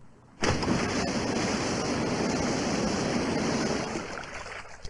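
A flood of water gushing out in a cartoon sound effect, bursting in suddenly about half a second in, pouring steadily, and dying away near the end.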